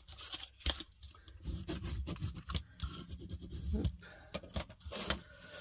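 A bone folder rubbed firmly along the fold of kraft cardstock to sharpen the crease, a dry scraping and rubbing of card, with a few sharp clicks as the card is handled.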